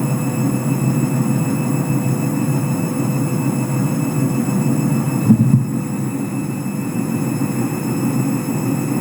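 Candy washing machine in a sudslock: the drum turning with its load and the suds filling it, the motor running steadily with a high whine over a low churning rumble. A single brief thump about five seconds in.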